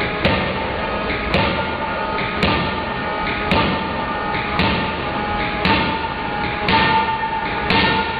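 Heavy forging hammer striking a white-hot steel block, a heavy thud about once a second in an even rhythm.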